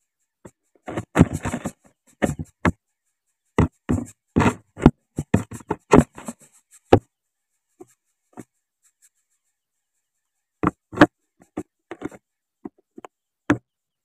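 Irregular clusters of sharp knocks and scrapes from a greater coucal at its nest, its body and the dry nest twigs bumping and brushing against the close-up camera as it shifts about.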